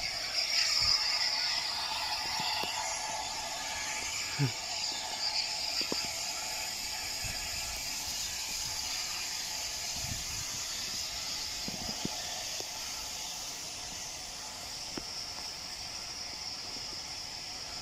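Steady hiss of escaping steam from a distant steam locomotive, the Bulleid Battle of Britain class light Pacific 34081, fading a little over the seconds, with a few faint knocks.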